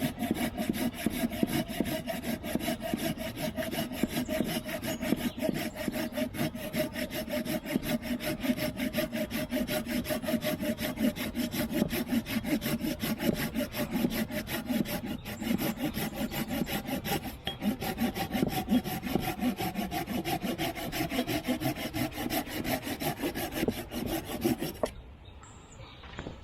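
Victorinox Ranger Swiss Army knife's small saw blade cutting through wood in fast, steady back-and-forth strokes, stopping abruptly near the end.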